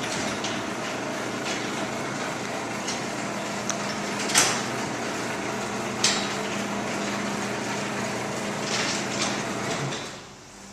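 LiftMaster 3280 belt-drive garage door opener running the door open: a steady motor hum under the rattle of the door's steel rollers in the tracks, with a few sharp knocks along the way. It stops about ten seconds in.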